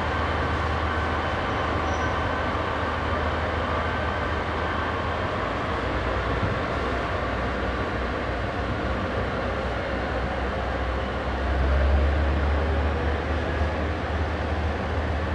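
Diesel railcar engines running: a steady low engine drone as a red KiHa 40-series diesel railcar pulls out of the platform, swelling louder about three-quarters of the way through as it works away.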